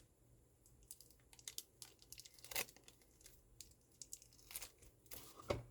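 Faint crinkling and tearing of a plastic wrapper being peeled off a lump of blue modelling dough, in scattered short crackles.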